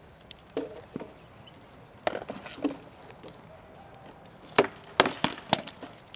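Rattan swords striking shields and armour in SCA armoured sword-and-shield sparring: scattered sharp cracks and knocks, then a quick flurry of about four loud blows about four and a half seconds in.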